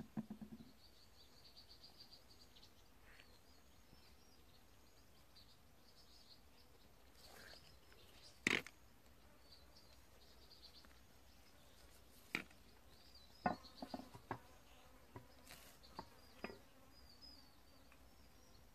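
Faint outdoor ambience of high, short chirps, with a handful of sharp taps and knocks: one about eight seconds in and a cluster between about twelve and sixteen seconds.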